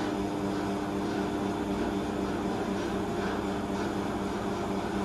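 An electric workshop machine running with a steady, even hum of several fixed tones.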